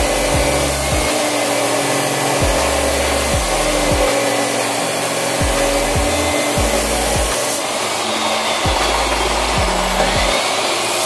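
Abrasive cut-off (chop) saw running at speed and grinding through steel bar stock, a dense steady noise. Near the end the blade is lifted clear of the cut.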